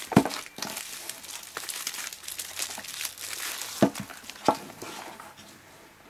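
Bubble-wrap packaging crinkling and rustling as a battery is pulled out of its box and unwrapped, with a few sharp knocks along the way. It fades out near the end.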